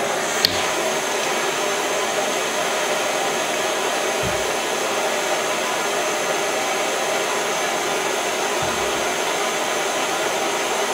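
Small propane torch burning with a steady hiss, with a sharp click about half a second in.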